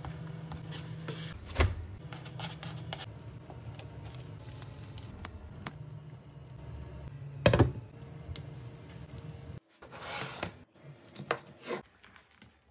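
Home cooking sounds over a low steady hum: a spatula knocks against the frying pan about a second and a half in, with a second loud knock past the middle. Near the end the crisp tortilla pizza crust crackles in short bursts as slices are pulled apart on a wooden board.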